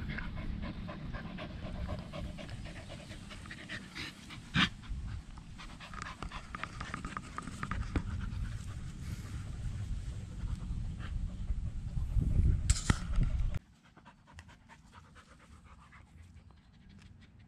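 Dogs panting heavily close to the microphone, over a low rumble with crackling and a few sharp knocks as they play around it. About three-quarters of the way through, the sound drops suddenly to fainter panting.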